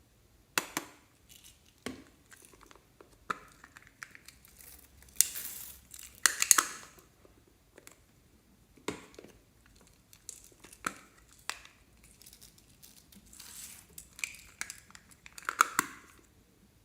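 Slime being squeezed and worked by hand: irregular crackles, sharp clicks and crinkly rustles in about a dozen separate bursts with short pauses between.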